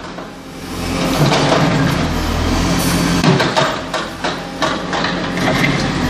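JCB 4CX backhoe loader's diesel engine running under load as the backhoe bucket digs through broken asphalt and rubble. Hard knocks and scrapes of the bucket on the chunks come thickest in the middle.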